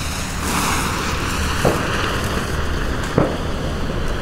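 Lonestar volcano ground fountain with coloured stars burning with a steady rushing hiss. Two short dull pops come about a second and a half apart.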